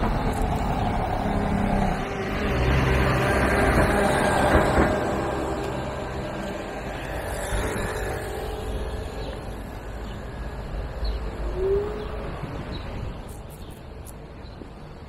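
City street traffic: a heavy vehicle's engine runs close by, loudest about four seconds in, then fades away. A brief squeak sounds near the end.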